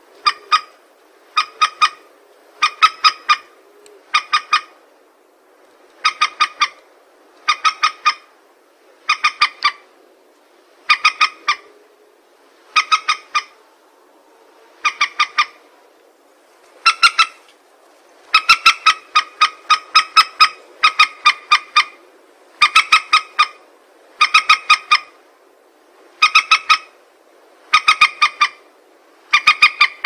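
Recorded lure call of a wetland rail, the kind played to draw paddy-field birds to nets: short, sharp, harsh notes in groups of three or four, repeated about every one and a half seconds and coming a little closer together past the middle.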